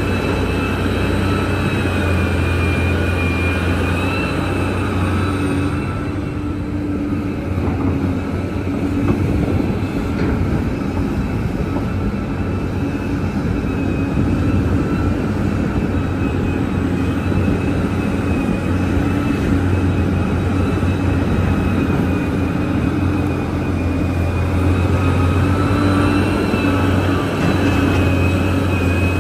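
Large Liebherr mining excavator running steadily: a deep engine drone with high whining tones over it. It eases off for several seconds early on and picks up again near the end.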